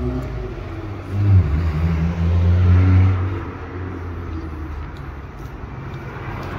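A car engine passing on the street, accelerating, with a low rumble that swells about a second in and fades after three seconds into steady traffic noise.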